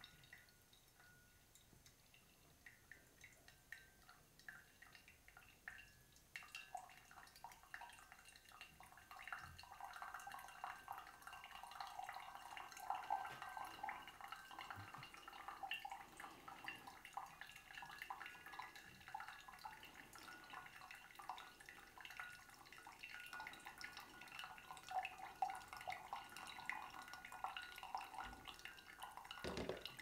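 Thin stream of hot water from a gooseneck kettle poured onto the coffee bed in a pour-over dripper. The pour starts about six seconds in and runs steadily, faint and trickling, until just before the end. Before the pour there is only faint dripping of brewed coffee into the carafe.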